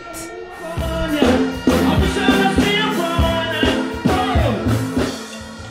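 Stage music with a deep, steady bass line and a singing voice over it, fading down near the end.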